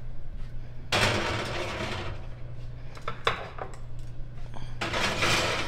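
Kitchen handling noise: dishes and utensils clattering in two longer stretches, with a few sharp clinks between them, over a steady low hum.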